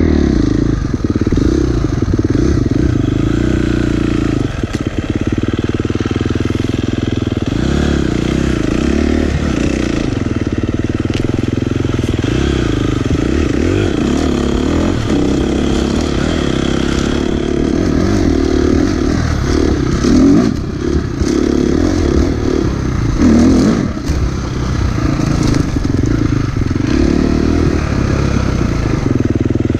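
Dirt bike engine running and revving up and down as it rides a snowy trail, with louder bursts of throttle about two-thirds of the way through.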